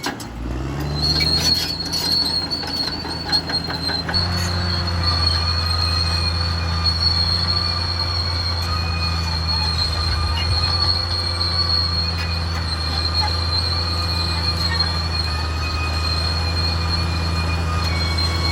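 Caterpillar D6R XL crawler bulldozer working: its diesel engine revs up just after the start and runs louder and steady from about four seconds in, under a continuous high-pitched squeal from the steel track undercarriage.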